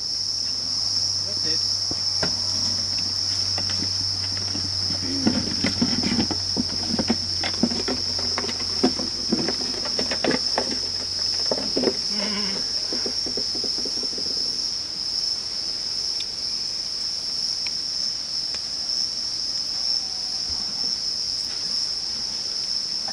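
Steady, high-pitched drone of an insect chorus, unbroken throughout. Scattered light clicks and knocks come through it in the middle stretch.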